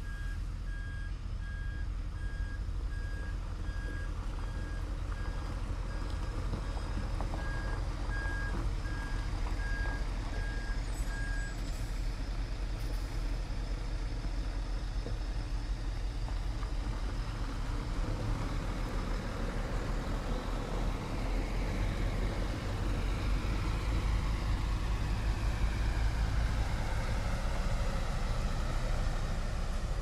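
Police water cannon truck with its heavy engine running steadily, and a reversing beeper sounding a steady run of beeps until about eleven seconds in. In the last third the truck grows slightly louder, with whines that fall in pitch.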